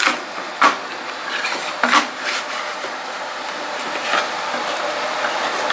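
Two hot-glued wooden pieces being worked apart: a handful of sharp cracks and knocks, spaced irregularly, as the glue bond is forced, over a steady hiss.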